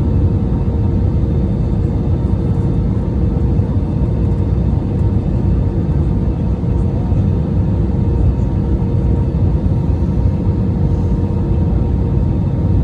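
Steady engine and airflow rumble inside an Airbus A319 passenger cabin in flight, with a steady hum running through it.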